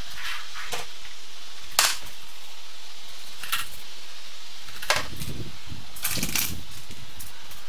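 Objects being handled and set down on shelves in wall cabinets: a handful of separate sharp knocks and clicks, the loudest about two seconds in and a quick cluster about six seconds in, over a steady hiss.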